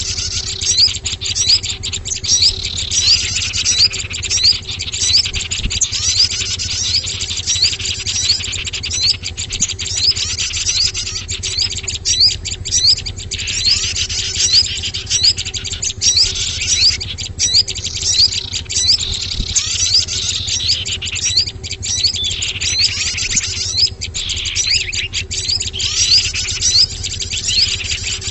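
Mixed small-bird lure recording: many high, short chirps and calls from small songbirds overlapping without pause, over a steady low hum.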